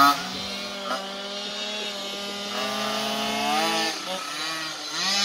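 Two-stroke moped engine running hard under way. The revs fall away as it begins, build again over the next few seconds, drop briefly about four seconds in and climb once more at the end.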